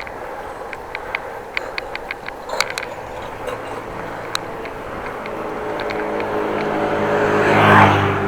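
A motor vehicle drawing closer and passing, its engine and tyre noise building over several seconds to loudest near the end, then easing. Scattered sharp clicks sound in the first few seconds.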